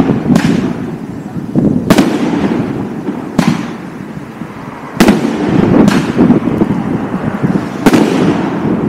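Aerial firework shells of 25–50 mm calibre bursting overhead one after another: six sharp bangs at uneven intervals of one to two seconds, each trailing off in a rolling echo.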